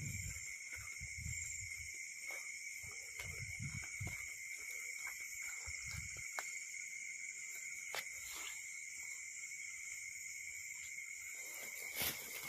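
A steady chorus of crickets and other night insects: a continuous high, even drone. Soft knocks and rustles of handling come in the first few seconds, and there are a couple of sharp clicks later on.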